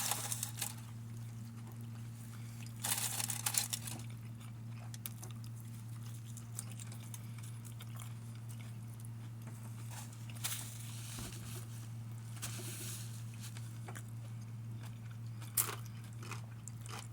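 Someone chewing and crunching a fresh hot pepper close to the microphone, in bursts near the start, about three seconds in and briefly later on. A steady low hum runs underneath.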